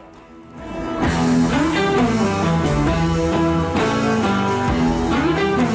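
Background music that swells up during the first second and then plays on steadily.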